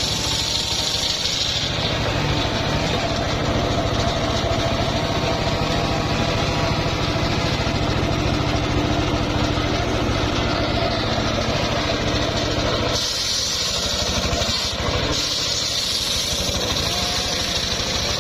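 Engine of a homemade circular sawmill running steadily with an even, rapid pulse. A brighter hiss rises over it about thirteen seconds in for a couple of seconds.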